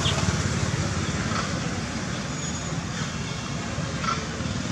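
Steady low background rumble, with two faint short chirps, one about a second in and one near the end.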